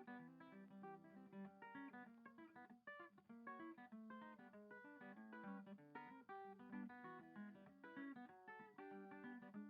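Quiet background music of guitar, picked notes following one another in quick succession.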